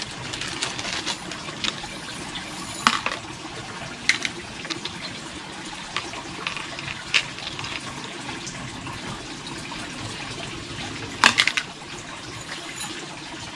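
Light metal chain for a hanging planter clinking and rattling as it is handled and untangled, with scattered sharp clicks of the links, a cluster of them near the end the loudest, over a steady hiss.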